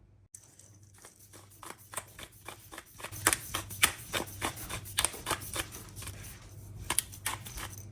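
A quick, irregular run of small clicks and taps, several a second, growing louder about three seconds in.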